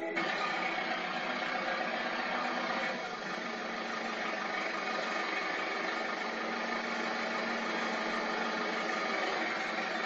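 David Brown tractor engine idling steadily.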